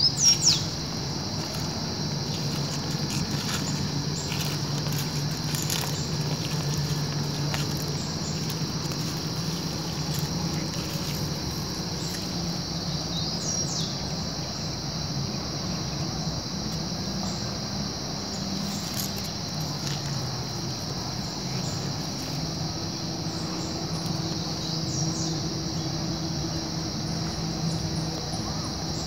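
A steady, high chorus of insects chirring in woodland, with a few short bird calls: once near the start, about halfway through, and near the end. A low steady hum runs underneath.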